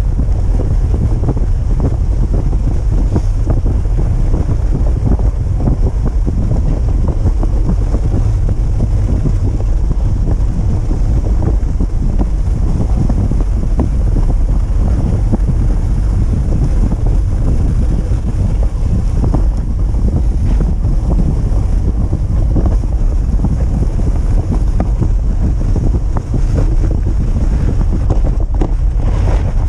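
Steady wind buffeting the microphone of a camera riding on a moving dogsled, a constant low rumble with the sled's rushing noise over the snow underneath.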